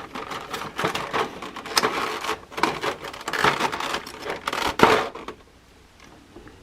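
Toy packaging being handled: crinkling and rustling with sharp clicks and knocks, stopping about five seconds in.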